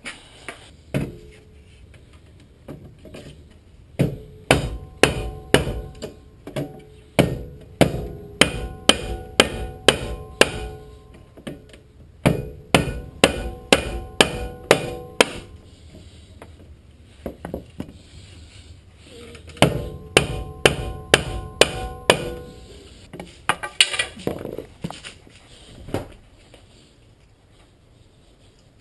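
Big mallet pounding a wooden rod against a stuck rear brake rotor on a 2009 Infiniti G37 to knock it off the hub. Three runs of sharp blows, about two to three a second, with short pauses between them, and a metallic ring after each hit.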